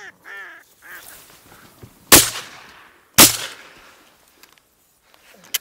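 A few quick quacking duck calls, then two shotgun shots about a second apart, each with a long echoing tail, fired at a flying duck. A sharp click comes near the end.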